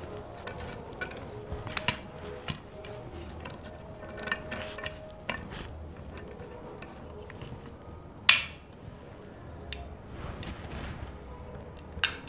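Hand-held wheel glass cutter worked along a sheet of clear glass: scattered small clicks and ticks of metal on glass, with one sharp, louder click about eight seconds in and another near the end.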